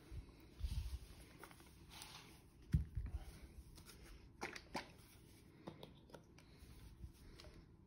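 Faint handling noise from a plastic squeeze bottle of acrylic paint being squeezed over the seat: scattered soft rustles and clicks, with a low thump about three seconds in.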